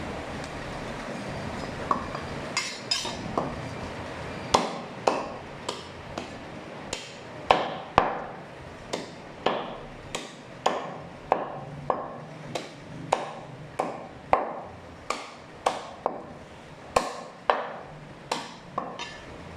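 Butcher's cleaver chopping a goat leg, meat and bone, into pieces on a wooden chopping block. A few light knocks come about two seconds in, then sharp chops start at about four and a half seconds and go on at roughly two a second.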